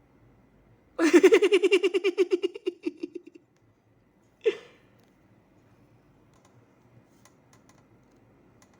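A cartoon sheep character's quavering, fading laugh about two seconds long, then a single short hiccup.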